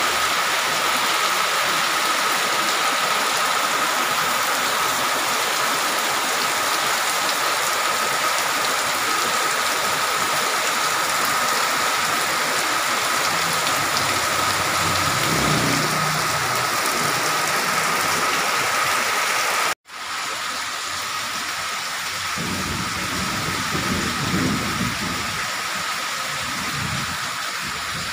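Heavy rain pouring onto a paved street and roofs: a loud, steady hiss. A motorcycle engine rises and fades as it passes about halfway through. After a brief dropout near two-thirds in, the downpour goes on with more passing traffic rumbling through it.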